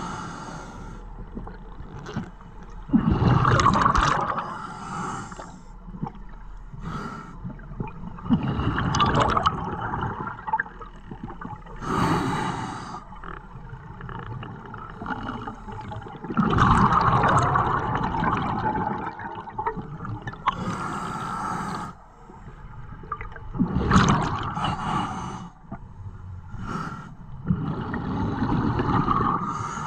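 Scuba regulator breathing heard underwater: loud bubbling rushes of exhaled air about every four seconds, with quieter stretches between breaths.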